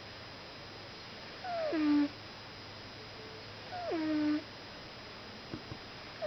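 A cat snoring, each breath giving a pitched squeak that drops and then holds for about half a second. Two squeaks about two seconds apart, and a third begins right at the end.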